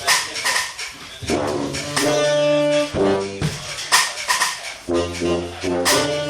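Live jazz band playing, with a saxophone carrying the melody over regular drum and cymbal hits.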